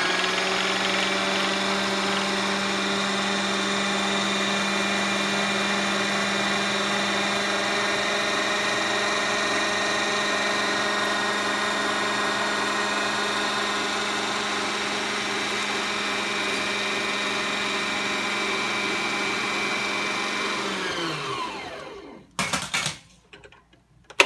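Singer sewing machine's electric motor running at steady high speed with the pedal held down, spinning a bobbin on the top bobbin winder. About 21 seconds in it slows to a stop with a falling whine, and a few short clicks follow near the end.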